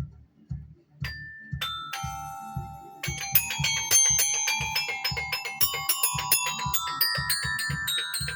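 Tuned mallet percussion: three single struck notes that ring on, then from about three seconds in a fast run of notes climbing in pitch. A low drum beat runs underneath.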